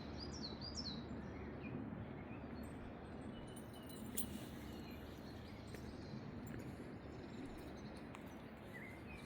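Faint, steady background noise, with a few short, quick bird chirps in the first second and the odd faint chirp later.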